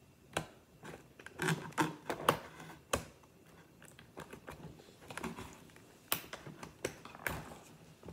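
Small scissors snipping through a toy's cardboard and plastic packaging: a string of irregular, crisp snips and clicks with short pauses between them.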